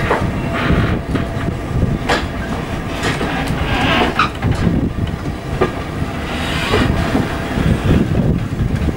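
Railway carriage rolling slowly along the track, heard from on board: a steady low rumble of the wheels, with irregular clicks and knocks over the rail joints and a brief higher screech about four seconds in.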